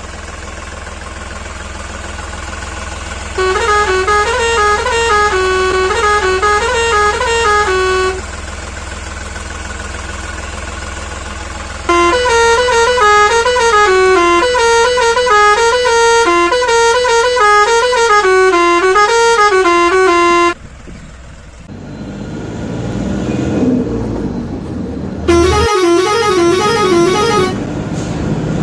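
Roots Hexatone six-trumpet air pressure horn on an Ashok Leyland Dost playing a musical tune in quick stepped notes, in three passages with steady low hum between them. The last, short passage comes near the end over road and traffic rumble heard from inside the moving cab.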